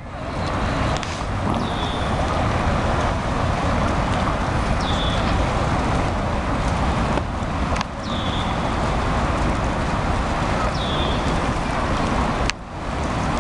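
Steady outdoor rumble and hiss of wind across the microphone. A short falling chirp, like a small bird's call, repeats about every three seconds. There are two brief knocks, one about seven seconds in and one near the end.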